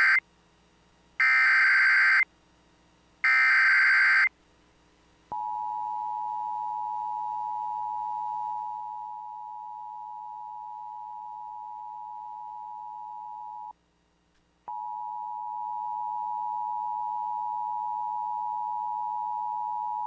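Start of an Emergency Alert System tornado warning: the end of one SAME digital header burst and then two more, each a harsh buzzing screech about a second long with a short gap between. About five seconds in comes the steady two-tone EAS attention signal, which cuts out for about a second near fourteen seconds and then resumes.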